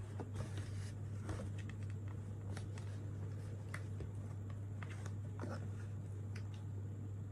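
Steady low hum with scattered faint clicks and taps.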